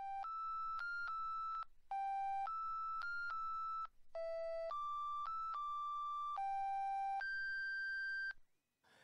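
A simple electronic ringtone-style melody of pure beeping notes, played in three short phrases with brief gaps, the last phrase ending on a held note.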